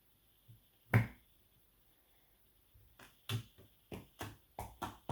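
Clear slime being squished and rolled by hand, giving sharp clicks and pops: one loud pop about a second in, then a run of clicks at about three a second from about three seconds in.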